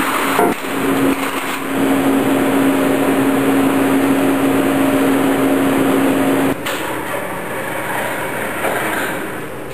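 Steady hum and rushing noise of shop machinery around a laser cutting table, with a few metal clinks in the first couple of seconds as a cut steel gear is lifted out of the sheet. About two-thirds of the way through, the hum stops abruptly and a quieter, even rushing noise continues.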